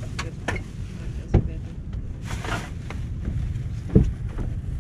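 Low wind rumble on the microphone in a sailboat's cockpit, with several sharp knocks and thumps as people move about the deck, and a brief hissing rustle about halfway through.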